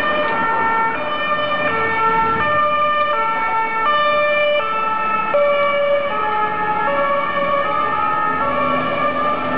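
Swiss ambulance two-tone siren (Martinshorn), switching between a high note and a low note about every three quarters of a second as the ambulance drives past.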